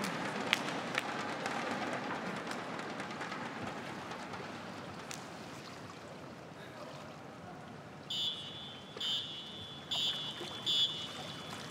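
Steady hall noise that fades, then, about eight seconds in, four short, high whistle blasts in quick succession. This is the swimming referee's series of short whistles calling the swimmers to get ready behind the blocks before a race.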